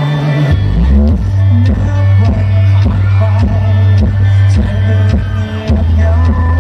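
Pop song played loud at a live performance: a heavy bass line and a steady drum beat come in about half a second in, with a male singer's voice on a handheld microphone over them.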